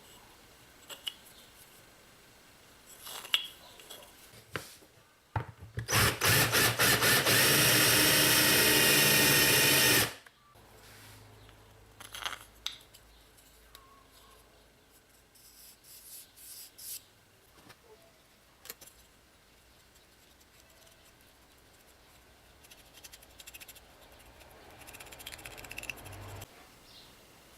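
Handheld power tool, likely a drill, switched on and off in a few quick pulses, then running steadily for about four seconds before stopping. Light clicks and knocks of tools being handled come before and after.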